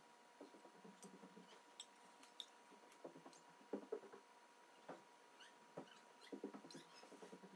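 Faint, irregular crackling and clicking of a Chinese mantis chewing through a wolf spider, coming in short runs every second or two.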